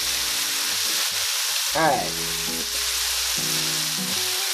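Flour-coated chicken pieces flash-frying in a shallow layer of hot oil in a large pan, a steady sizzle, with a fork moving the pieces about.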